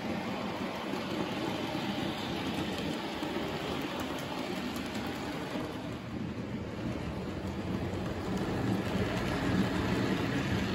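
Model railway trains running on the layout: a steady rumble and rattle of wheels on track, with light clicking, getting a little louder near the end as a train passes close by.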